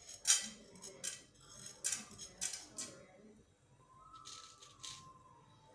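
Chana dal grains dropped by hand into oil in a non-stick kadai, landing with several short light clicks in the first three seconds and a softer patter a little later.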